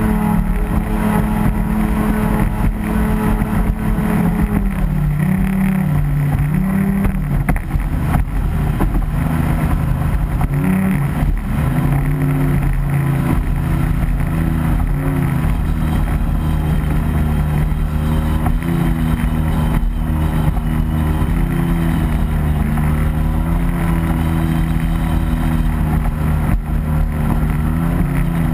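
RC racing boat's motor running hard, heard from a microphone on board over the rush of water and wind, its pitch dipping and rising several times as the boat works through the course.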